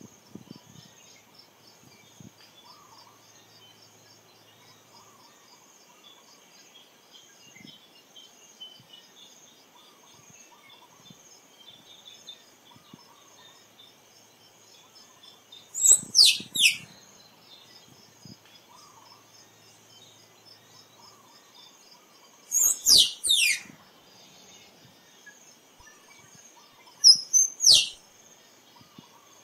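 Squirrel calling in three bouts in the second half, each a quick run of three or four sharp, high notes that fall steeply in pitch. A faint steady insect buzz runs underneath.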